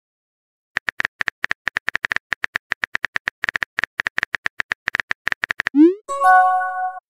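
Texting-app sound effects: a rapid run of keyboard typing clicks, about eight a second, then a quick rising swoop and a short chime of several steady tones as a message is sent.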